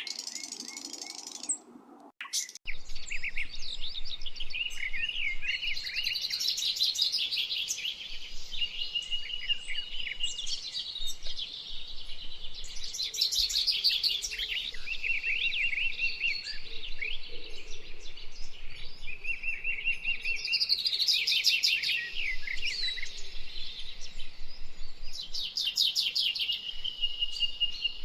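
Songbird singing: a continuous run of high chirps, quick trills and repeated phrases, with a brief break in the sound about two seconds in.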